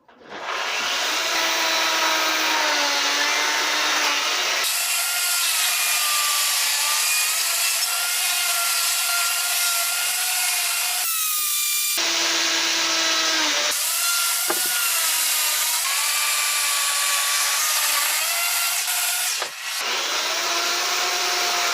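Chainsaw running and cutting into a wooden log, its pitch rising and falling with the throttle as the cuts are cleaned up, with brief drops about halfway through and again near the end.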